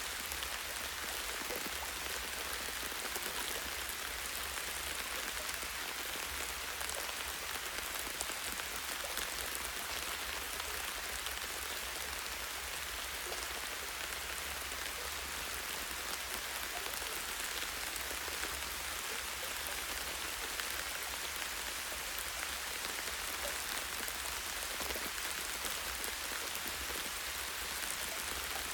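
Light rain falling steadily on tree branches and leaves: an even wash of fine drops with faint scattered patters, no change in strength.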